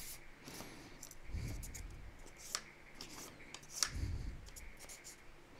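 Pen scratching on paper in short irregular strokes, with paper rustling and a couple of dull thumps from handling, as a pattern of a broken neon tube is traced.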